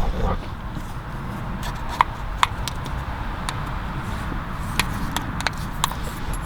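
Scattered light clicks and scrapes of metal parts being handled as the two halves of an NRG steering-wheel quick release are worked apart, over a steady background hiss.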